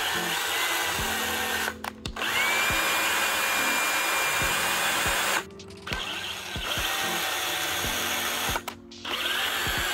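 Cordless hand drill turning the worm-screw shaft of a lathe chuck to open and close the jaws. The motor runs in stretches with a steady whine, stopping briefly three times, about 2, 5.5 and 9 seconds in.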